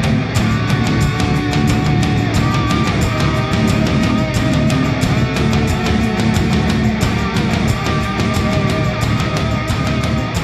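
Background music: a fast heavy rock track with distorted guitar and a steady, driving drum beat.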